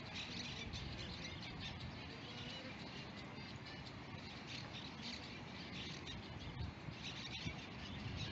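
Steady rush of water through a spillway, with small birds chirping over it.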